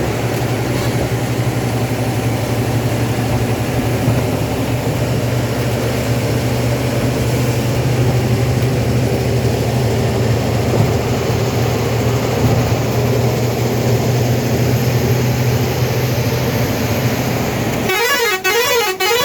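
Steady running noise of a motor vehicle with a low hum, and a warbling horn sounding briefly near the end.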